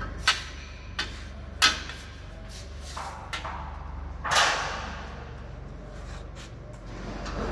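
Three sharp metallic knocks in the first two seconds, then a longer rattling clatter a little past four seconds, from parts of a Rieter G38 ring spinning frame being worked on. A steady low machinery hum runs underneath.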